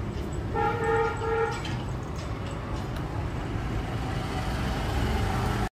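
Steady low rumble of street traffic, with a vehicle horn tooting twice in quick succession about half a second in; the sound cuts off suddenly near the end.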